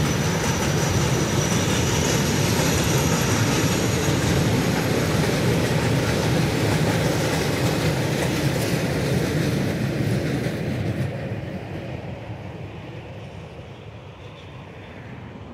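Container flat wagons of a freight train rolling past: a steady rumble of wheels on rail, with a thin high wheel squeal in the first few seconds. The last wagons pass about ten seconds in and the sound fades away.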